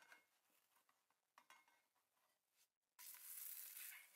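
Near silence with a couple of faint clicks, then about three seconds in, a pancake starts sizzling suddenly in a hot non-stick frying pan as it is turned over with a silicone spatula.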